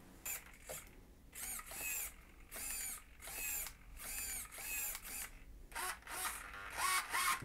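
Small RC hobby servos whining in short bursts as they are swept back and forth, about two sweeps a second, each whine rising then falling in pitch.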